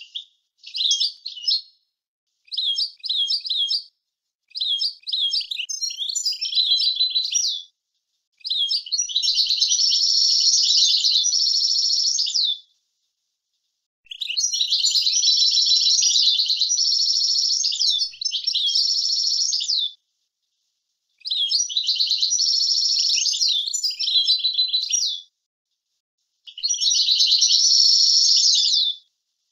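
European goldfinch singing: about eight seconds of short, quick twittering notes, then long, dense, trilled song phrases of several seconds each, separated by short silent gaps.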